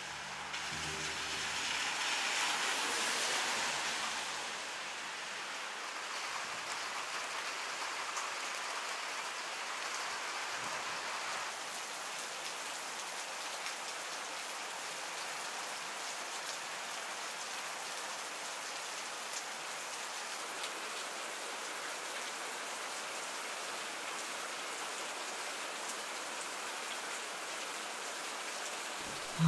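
Steady rain falling, an even hiss that swells louder for a few seconds near the start.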